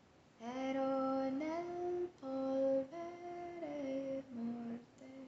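A woman singing alone and unaccompanied, a slow Italian hymn melody in long held notes that step up and down, with short breaks between them.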